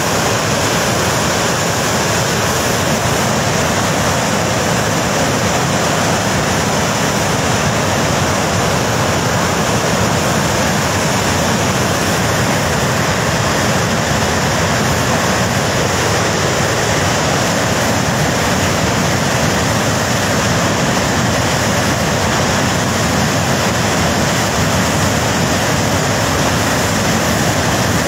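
Flash-flood torrent of muddy, churning water rushing down a mountain river gorge after a dam collapse: a loud, steady rushing noise.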